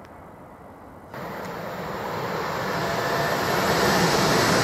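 London Northwestern Railway Class 350 Desiro electric multiple unit approaching at speed, a rushing rumble of wheels on rail and air. It jumps up suddenly about a second in, then grows steadily louder as the train nears.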